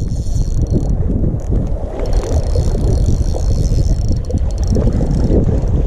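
Heavy wind rumble on the microphone, with the whir and rapid ticking of a spinning reel being wound in on a hooked rockfish; a higher hiss joins for a few seconds in the middle.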